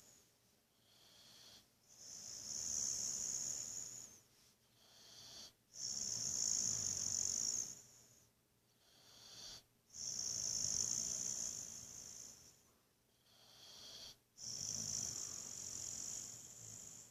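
Boxer dog snoring in deep sleep: four long, slow snoring breaths about every four seconds, each with a high hiss over a low rumble.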